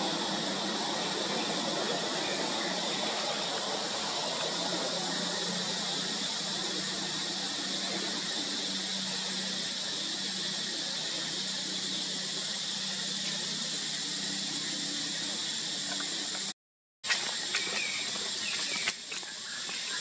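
Steady high-pitched drone of forest insects, unchanging throughout. Near the end it breaks off for a moment and is followed by a few light knocks.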